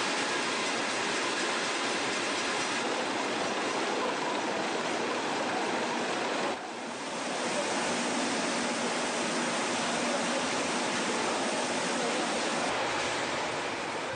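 Steady rush of high-pressure water spraying, with a short dip about six and a half seconds in.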